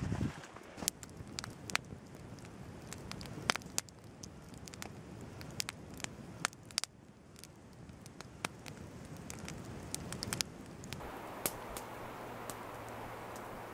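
Wood campfire crackling, with sharp irregular pops and snaps. About eleven seconds in the popping gives way to a steady, even rushing noise.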